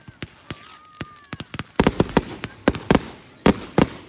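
Flamingo firework going off: a rapid, uneven string of sharp bangs, about fifteen in all, coming thickest in the second half.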